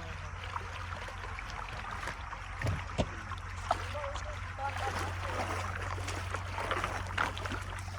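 Floodwater running and trickling through a drain, over a steady low hum, with a couple of sharp knocks about three seconds in.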